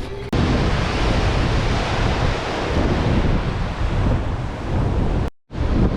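Strong wind buffeting the microphone, a dense rumbling noise that starts abruptly about a third of a second in and cuts out briefly near the end.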